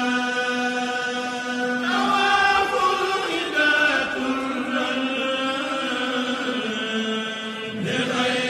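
A man's voice chanting in long, drawn-out held notes, shifting pitch about two seconds in and again near the end.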